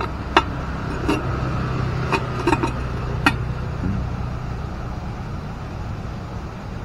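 Granite gravestone plaque being set into its ceramic base: about five sharp clacks of stone against tile in the first three seconds or so, over a steady low background rumble.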